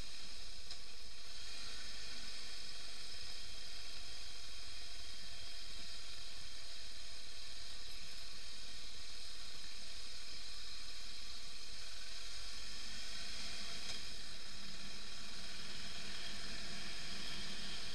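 Steady hiss of wind and tyre noise picked up by a motorcycle-mounted action camera while riding on a gravel road.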